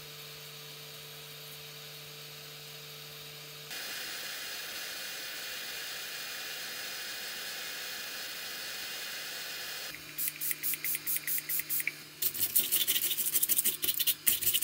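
A hot air rework gun blows a steady hiss, starting about four seconds in and stopping about six seconds later. Then comes a quick run of clicks, followed by louder scraping and rattling clicks near the end.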